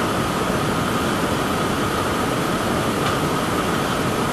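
Steady drone of a fishing trawler's machinery, an even rushing noise with a constant mid-pitched hum through it.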